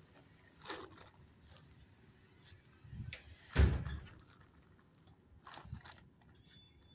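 A few scattered knocks, with one loud bang about three and a half seconds in.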